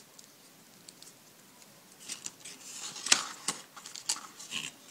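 A hand rummaging in a cardboard phone box and its packaging tray: rustling and scraping with several sharp clicks, starting about two seconds in.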